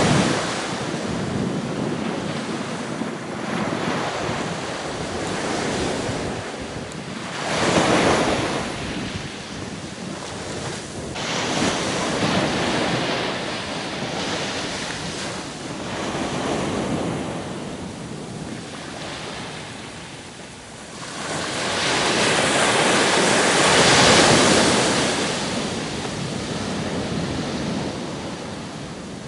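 Small waves breaking and washing up on a sandy beach. The surf swells and eases every few seconds and is loudest about three-quarters of the way through.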